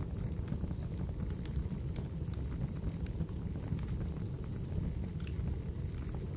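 Wood fire burning, a steady low rumble with scattered sharp crackles and pops.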